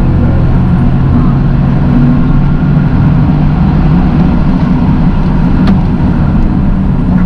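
Toyota GR Yaris's three-cylinder engine running while the car is driven, over road noise, its pitch holding steady for the first couple of seconds and then wavering.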